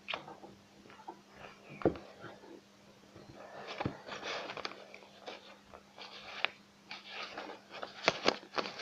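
Colored pencil scratching on paper in short strokes, mixed with knocks and taps from handling the paper boat on the table. The sharpest knocks come about two seconds in, about four seconds in, and as a quick pair near the end.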